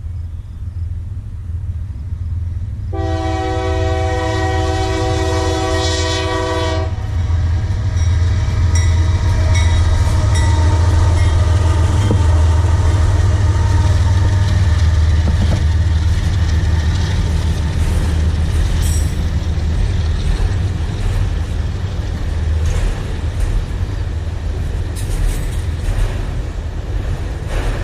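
A freight train's locomotive horn sounds one long blast about three seconds in and lasts about four seconds. Then the loud, steady rumble of the train passing close by takes over, with scattered wheel clicks over the rail.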